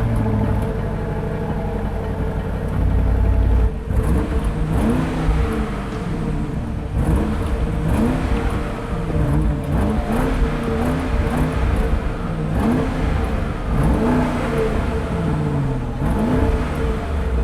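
A car engine revving again and again, its pitch climbing and dropping back about once every second or so, over a steady low drone.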